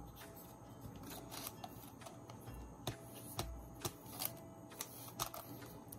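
Rubber stamp pressed onto paper: scattered soft taps and clicks with paper being handled. Faint background music runs underneath.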